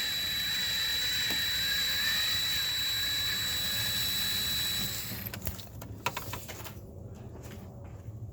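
A motor runs steadily with a high, even whine and hiss, then cuts off about five seconds in; a few clicks and light knocks of tool handling follow.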